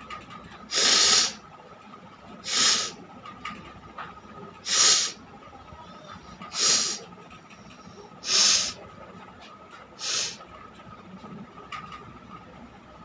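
A person blowing hard through the nose six times in a steady rhythm. Each blast is a short hiss of air about half a second long, coming roughly every second and a half to two seconds.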